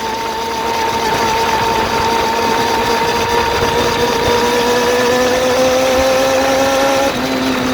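Suzuki GSX-R400 inline-four engine running at raised revs, its pitch climbing slowly and then dropping back about seven seconds in.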